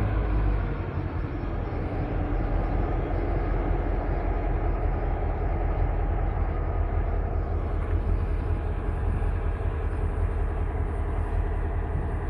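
GM G26 diesel-electric locomotive's 16-cylinder EMD two-stroke diesel engine running steadily as the locomotive moves slowly past hauling flat wagons: a low, even engine drone with a steady hum over it.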